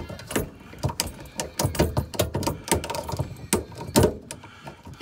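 Irregular clicks and small knocks of hands working stripped wires into the orange lever connectors of an inverter charger's AC terminal block, fingers handling the plastic levers and the wires against the sheet-metal housing.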